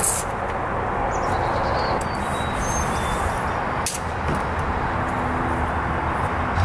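Steady outdoor rushing noise, like distant traffic or wind, with a sharp click at the start and another about four seconds in.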